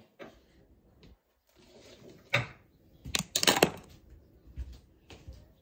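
A few sharp knocks and clatters, with the loudest cluster about three seconds in, like a door or drawer being handled.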